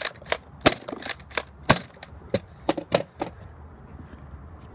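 Nerf dart blaster fired again and again at close range: a quick run of about ten sharp plastic clicks and snaps, roughly three a second, that stops a little past three seconds in.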